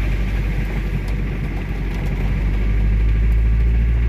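Vehicle running on the road: a steady engine rumble with road noise, getting a little louder about three seconds in.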